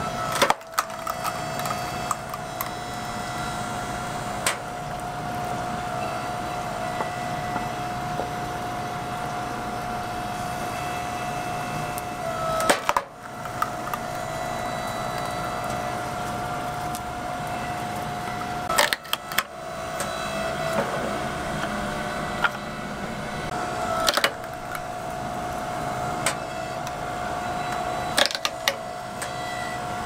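Log splitter's motor humming steadily while its wedge splits oak logs, the wood giving sharp splintering cracks about six times, every few seconds.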